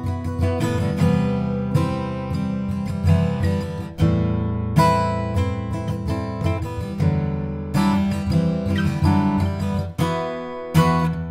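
A 1959 Gibson J-45 round-shoulder acoustic guitar played solo, mixing picked notes with strummed chords that ring out, with a few sharp strums standing out.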